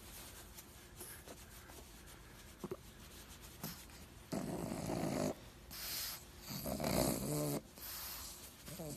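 Pug snoring in its sleep: faint at first, then three louder, rasping snoring breaths in the second half.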